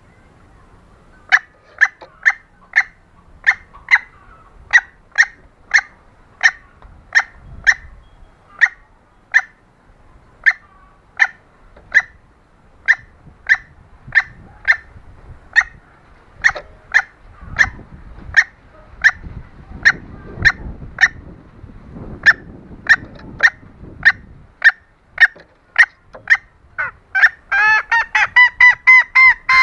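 Female green junglefowl calling: a long, even run of short, sharp calls, a little under two a second, breaking near the end into a quicker, louder string of about four calls a second. It is a hen's mating call that draws males.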